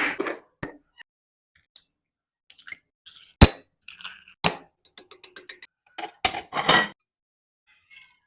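Kitchen utensils knocking and clinking against bowls. There is one sharp ringing knock, then a quick run of light taps, then a louder clatter.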